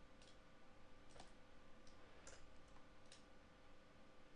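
Faint, scattered clicks of a computer mouse and keyboard, about six over a few seconds, over a faint steady hum.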